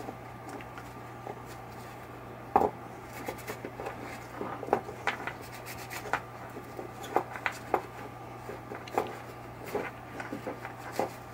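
Cloth rubbing over a pinball chime-box coil as it is wiped clean of coil dust, with scattered light clicks and knocks as the coil and small metal parts are handled on the workbench; the loudest knock comes about two and a half seconds in. A steady low hum runs underneath.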